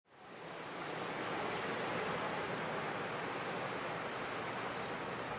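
Ocean surf washing onto a sandy beach, a steady rush that fades in over the first second. A few faint high chirps come in near the end.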